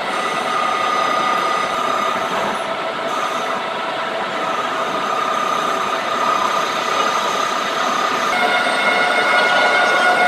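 Metal lathe running, a steady machine whine with several held tones over a rushing noise. About eight seconds in the tones shift in pitch and the sound grows slightly louder.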